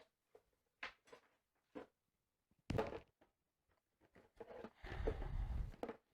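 Handling noise from the wiring harness kit's parts being packed back into their cardboard box: a few light knocks, a louder rustle about three seconds in, then a second of steady rubbing and rustling near the end.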